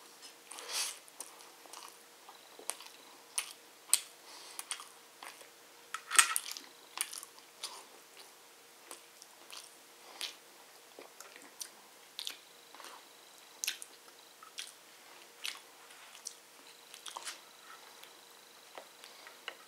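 Close-up eating noises: a person chewing mouthfuls of biryani rice, chicken and boiled potato, with irregular wet clicks and smacks of the mouth. The loudest cluster comes about six seconds in.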